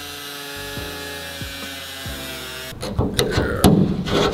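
Background music for the first two and a half seconds or so. Then it suddenly gives way to loud metal scraping and rubbing with sharp knocks: a flat metal blade prying and scraping along the freshly ground cut in the sheet-metal car hood.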